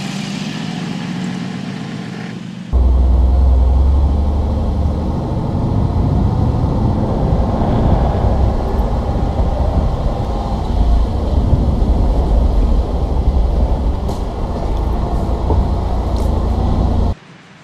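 Mercedes G500 SUV driving with its engine running. About three seconds in, the sound jumps abruptly to a much louder, deep rumble that lasts until shortly before the end, then cuts off suddenly.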